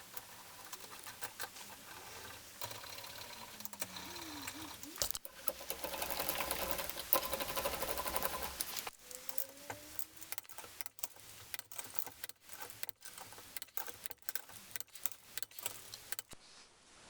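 Rapid clicking and clattering of sped-up workshop sounds, with a louder, denser stretch of noise in the middle.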